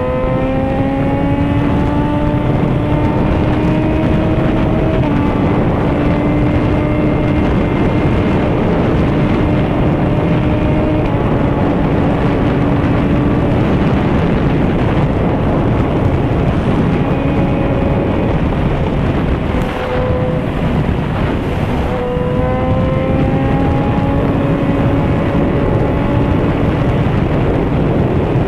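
Sportbike engine pulling at highway speed: its note climbs, drops with an upshift about five seconds in, holds steady, then climbs again in the last third. Heavy wind rush over the microphone runs under the engine throughout.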